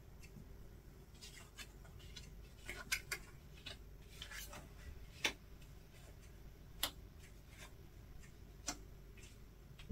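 Tarot and oracle cards being laid down on a table: faint, scattered taps and clicks, with a few sharper single clicks in the second half.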